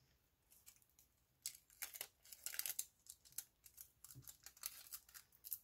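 Faint crinkling and light clicking of makeup containers and packaging being handled: an irregular string of rustles and small ticks, busiest in the middle and again near the end.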